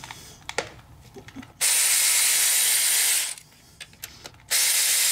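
Cordless power ratchet running twice, each run steady and about a second and a half long, spinning out the two lower bolts of a Harley Milwaukee-Eight transmission outer cover. Light clicks of the socket being fitted onto the bolt come before the first run.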